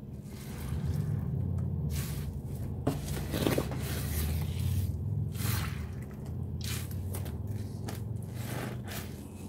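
Sponges soaked in thick Ajax cleanser paste are squeezed and kneaded by gloved hands, making a series of repeated wet squelches.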